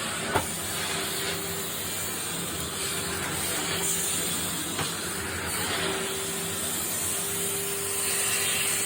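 Vacuum cleaner running steadily as it is pushed back and forth over carpet, a steady hiss with a faint motor hum that wavers, and a sharp click about half a second in.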